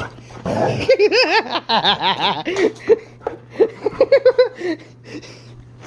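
Elmo toy laughing in a high, giggling voice, ending in a quick run of short "ha-ha" pulses, over a steady low hum.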